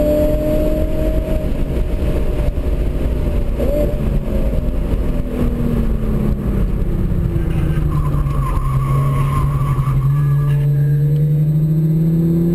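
Hyundai Genesis Coupe's 3.8-litre V6 heard from inside the cabin, running at high revs, then dropping in pitch as the car slows for a corner and climbing slowly again near the end as it pulls out. A wavering tyre squeal comes mid-corner, about eight seconds in, for about two seconds.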